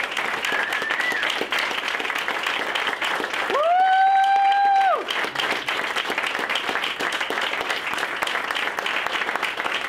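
Audience applauding steadily, a standing ovation of many hands clapping. About three and a half seconds in, one voice gives a long, held cheer over the clapping, the loudest thing heard.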